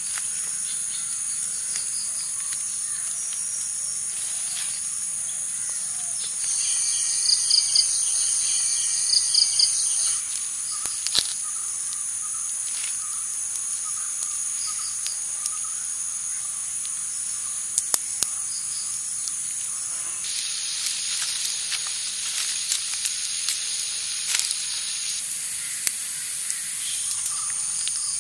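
Outdoor ambience of insects droning in a steady high-pitched chorus. A bird's repeated chirping phrases come in about a quarter of the way in and last a few seconds. There are a few sharp clicks and a broader hiss swelling for several seconds after the middle.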